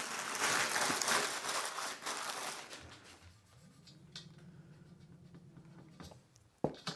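Clear plastic protective sleeve on an aluminium extrusion crinkling as it is handled, for about the first three seconds. After that it goes quiet apart from a few light clicks.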